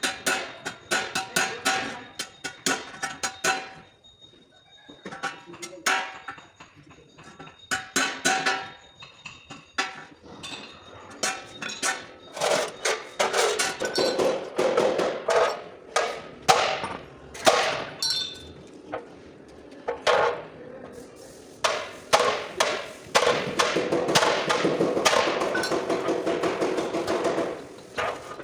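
Hammer blows on the sheet-metal front body panels of a Toyota Fortuner being beaten back into shape: irregular sharp strikes with a metallic ring, turning into a quicker, denser run of taps in the last several seconds.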